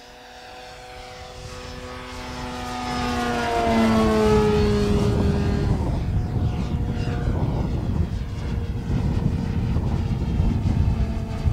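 Electric scale RC RV-4 model's brushless motor and 17x12 propeller in flight, a droning buzz that grows louder as the plane approaches and drops in pitch as it passes about four seconds in, then runs on steadier.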